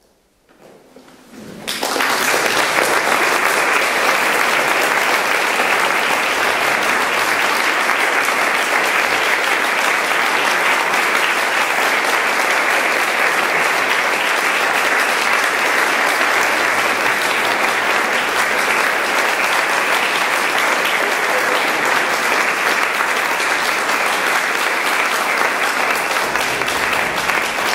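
Audience applauding: scattered claps begin about a second in and quickly swell into steady, full applause.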